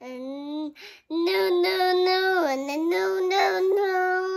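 A young child singing wordless held notes, a few short sounds first and then long sustained notes from about a second in.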